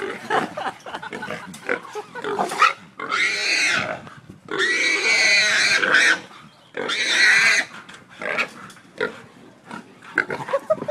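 Small black hog squealing as a catch dog works it: three long, loud squeals, the middle one longest, with short grunts and scuffling in between.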